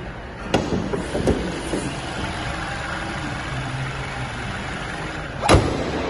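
Car engine idling with a steady low hum, broken by sharp knocks about half a second and a second in and a louder knock near the end.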